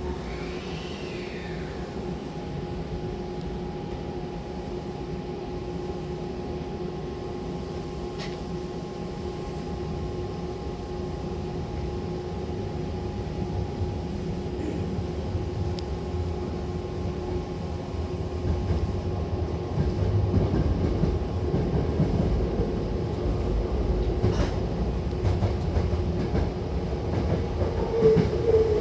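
Hankyu Takarazuka Line electric train running and gathering speed, heard from inside the car: a running rumble with steady tones above it, growing gradually louder.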